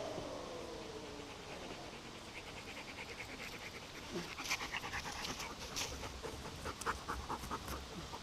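A dog panting quickly, short rhythmic breaths that grow clearer from about three seconds in. A faint falling whine fades out in the first second.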